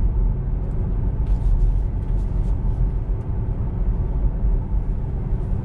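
Road and tyre noise inside a moving Tesla Model 3, an electric car: a steady low rumble.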